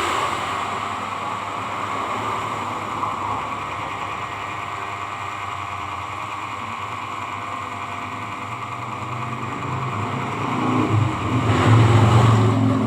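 A motor running steadily, with a low hum that swells louder near the end.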